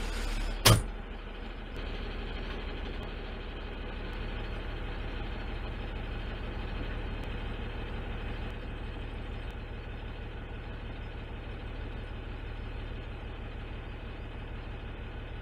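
Side-load automated garbage truck's engine idling steadily, heard from inside the cab. A single sharp knock sounds about a second in.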